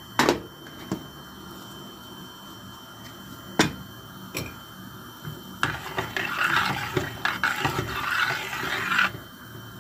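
Spoon stirring vegetables and broth in a stainless steel soup pot: liquid swishing with small clinks of the spoon against the pot, from about halfway through to near the end. A few single knocks come before it.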